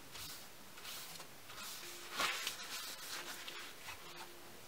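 Soft, repeated swishes of a cloth rubbing walnut oil into a wooden knife handle, then the rustle of a paper towel being handled, loudest about halfway through.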